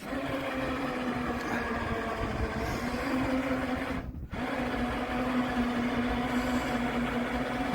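Electric winch motor running steadily under load as it hauls a seized ride-on mower up a loading ramp. It stops for a moment about four seconds in, then starts again.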